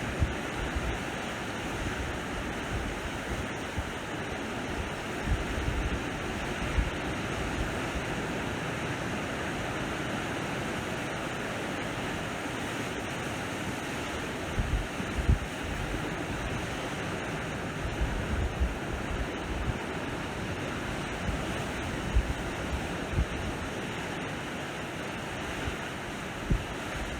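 Sea waves washing steadily onto the shore, with gusts of wind buffeting the microphone in low rumbles now and then, a few of them about halfway through and near the end.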